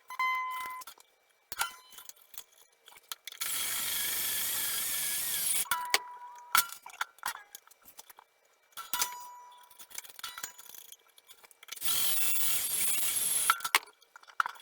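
Cordless drill with a string-winder bit, running in two bursts of a couple of seconds each, winding acoustic guitar strings onto the tuners. Between the bursts come metallic clinks and taps of the strings and hardware, and a few short ringing notes.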